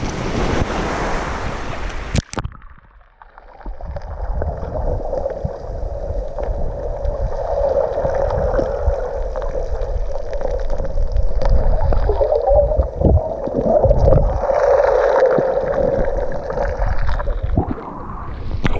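Sea water lapping and wind at the surface, then from about two seconds in the muffled underwater rumble and gurgle of the sea heard through an action camera's waterproof housing. The sound opens up again near the end as the camera breaks the surface.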